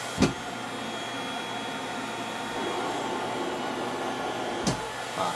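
Cough Assist machine's blower running steadily through one breath cycle of mechanical cough assistance, growing a little louder toward the end. A sharp pop comes about a quarter second in and again near the end, where the airflow switches.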